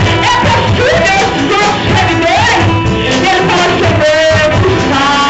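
Gospel worship music: a singing voice over a band with a steady beat.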